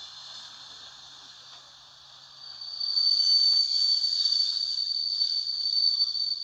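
Steam locomotive letting off steam: a faint hiss that turns, about two and a half seconds in, into a loud steady hiss with a high whistling tone running through it.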